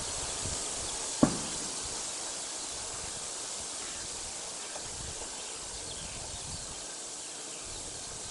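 Outdoor ambience: a steady high hiss with wind rumbling on the microphone, and one sharp knock about a second in.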